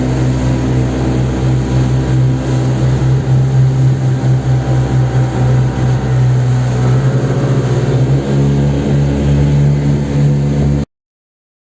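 Motor vehicle engine running steadily under way, its speed rising and falling slightly; it cuts off suddenly near the end.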